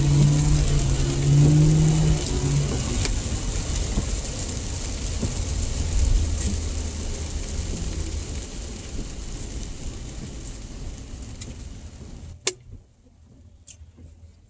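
Car engine and tyre noise on a wet road, heard from inside the cabin, slowly fading as the car slows. About twelve seconds in it cuts off suddenly with a click, leaving near quiet broken by a few small clicks.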